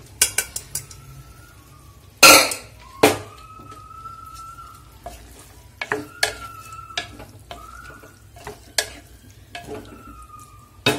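Wooden spatula stirring boiled chana dal into a tomato-onion masala in a metal pot, giving irregular scrapes and knocks against the pot, with the loudest knocks about two and three seconds in. A light sizzle of the cooking curry sits underneath.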